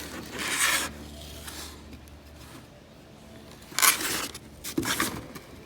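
Rubbing and scraping from handling the new axles and their packaging, in three short bursts: about half a second in, near four seconds, and near five seconds.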